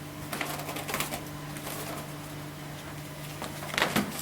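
Corrugated cardboard display board being handled: scattered light taps and scrapes, with a sharper cluster of knocks near the end, over a steady low hum.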